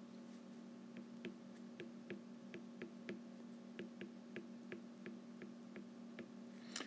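Faint ticks of a stylus tip tapping on an iPad's glass screen during handwriting, about three a second and irregular, over a steady low hum.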